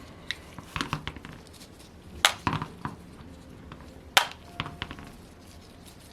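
Small metal tools and engine parts clicking and clinking against each other and the bench, in scattered short knocks, with two sharp clacks standing out about two and four seconds in.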